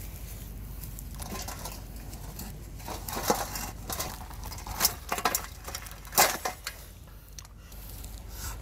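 Whole grilled duck being torn apart by hand on a metal plate: crisp skin and meat crackling and tearing, with a few sharp cracks as joints snap apart.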